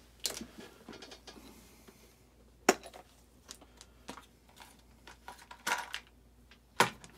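Small hard objects being handled and set down: scattered clicks and clinks. The sharpest comes about two and a half seconds in and another near the end, with a few quick clicks just before it.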